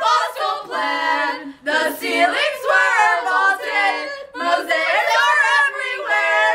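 A small group of girls singing together a cappella in carol style, with several long held notes.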